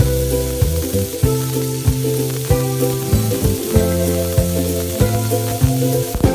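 Food sizzling as it fries in a miniature pan, under background music with held bass notes and a regular beat.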